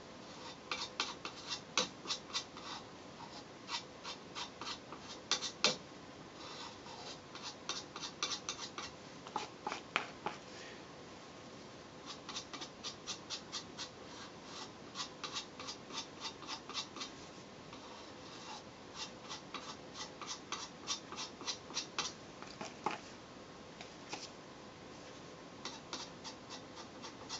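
Screwdriver tip scraping and ticking against a composite pole section as two-part adhesive is spread thinly over a worn patch. The sound comes as quiet, irregular runs of short scrapes and clicks with brief pauses between.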